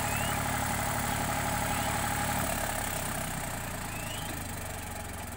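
Eicher 485 tractor's diesel engine running steadily with an even low chug, gradually getting quieter.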